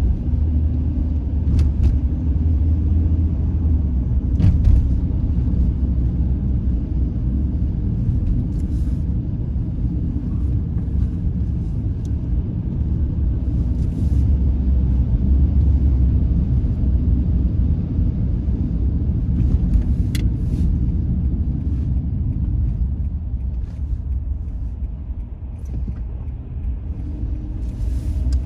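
Car driving along city streets: a steady low rumble of road and engine noise, with a few faint short clicks now and then.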